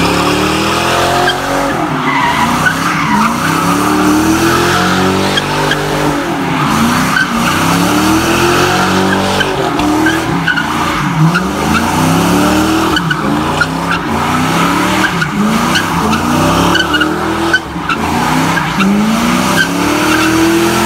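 Car spinning donuts: the engine revs up and down in repeated surges every second or two over continuous tyre screech from the spinning tyres. Near the end the engine is held at a steady high rev.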